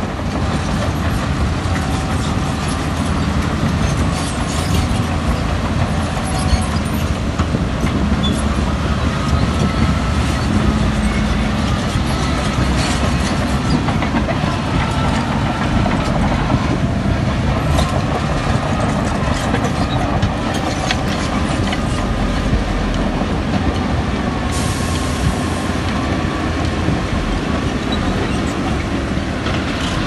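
Crawler bulldozer working: its diesel engine runs steadily under load while the steel tracks clank and rattle.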